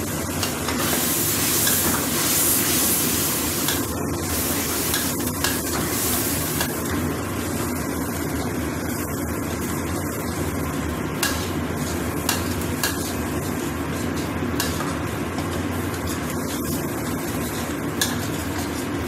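Ground chili spice paste frying in a steel wok, sizzling steadily, loudest for the first few seconds. A metal spatula stirs it, with a few sharp scrapes and taps against the wok.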